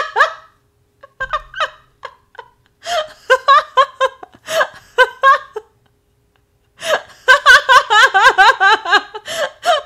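A young woman laughing hard in repeated choppy bursts. There is a short burst about three seconds in, a pause, and a longer bout from about seven seconds in.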